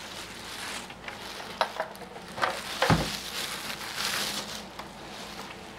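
Plastic packaging wrap rustling and crinkling as it is pulled off a kick drum shell, with a few small clicks and one dull, low thump about three seconds in.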